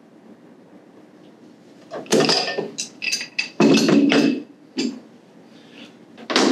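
Metal pipe fittings and tools clanking and clinking as they are handled on a metal cart. There are several separate bursts of clatter starting about two seconds in, each with a brief metallic ring, and one more near the end.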